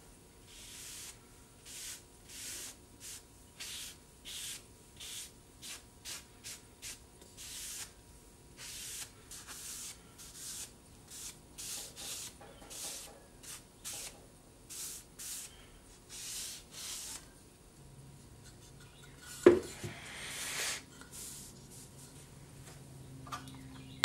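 A cloth rag wiping oil finish onto the sides of a small cedar wood box: a soft rubbing swish, repeated about twice a second. The strokes stop near the end, and there is one sharp knock, then a short rustle.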